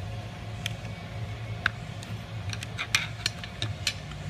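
Scattered light clicks and ticks of a screwdriver tip being set and shifted against the end bracket of a roller shade tube, most of them in the second half. A steady low hum runs underneath.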